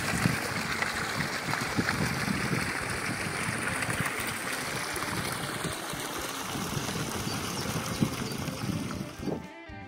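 Water pouring from an inflow pipe into a pond, a steady rush of running water. Guitar music cuts in near the end.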